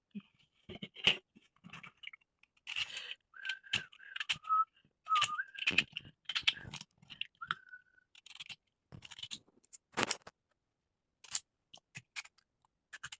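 Irregular knocks, clicks and scrapes of a knife cutting potatoes on a chopping board, with a sharper knock about ten seconds in. Someone whistles a few wavering notes in the middle.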